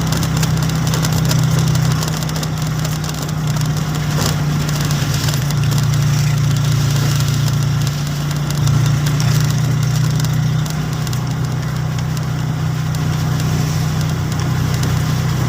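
An engine running steadily, with a constant low hum.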